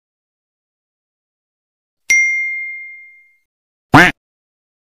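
A single bright bell-like ding about two seconds in, ringing and fading over about a second: the notification-bell sound effect of a subscribe-button animation. Near the end comes one very short, loud shout from a young man.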